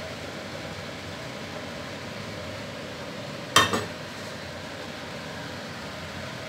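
Steady hiss of water boiling under a stainless-steel steamer basket, with one sharp clank against the pot about three and a half seconds in and a lighter knock just after.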